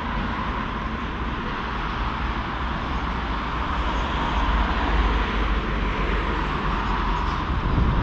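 Motorcycle under way: a steady mix of engine and wind noise, heaviest in a deep low rumble.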